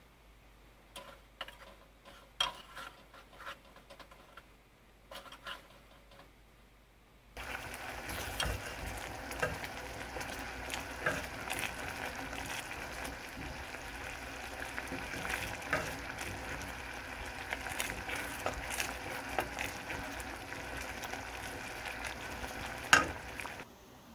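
A wooden spatula tapping and scraping in a pot of peach-peel jam, then, from about seven seconds in, the jam bubbling and crackling densely as it boils down and thickens, with the spatula stirring through it. A sharp knock near the end.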